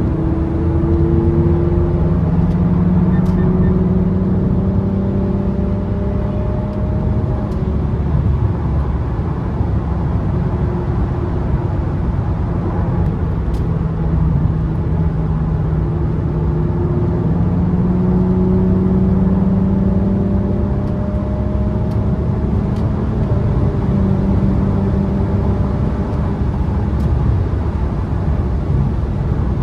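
Infiniti Q50 engine and road noise while driving, the engine note climbing slowly as the car accelerates and dropping back twice, over a steady low rumble.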